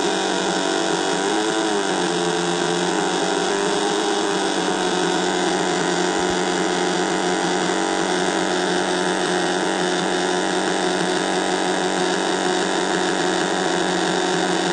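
555-timer drone synthesizer, three square-wave oscillators with their pitches swept by 555 low-frequency oscillators, playing a dense drone of several held pitches. The pitches waver about a second and a half in, then hold fairly steady.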